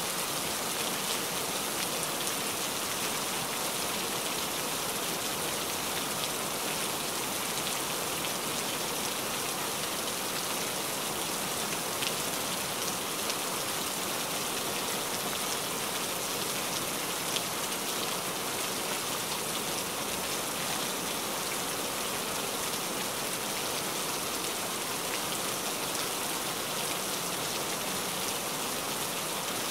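Steady heavy rain: an even hiss made of many small drop splashes, with no letup.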